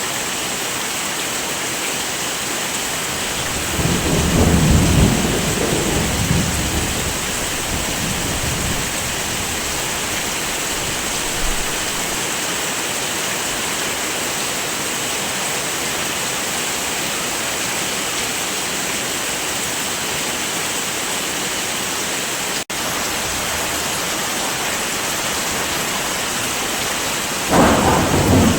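Steady heavy rain hissing, with two low rolls of thunder: one about four seconds in, lasting a few seconds, and another starting near the end. There is a split-second break in the sound a little past the middle.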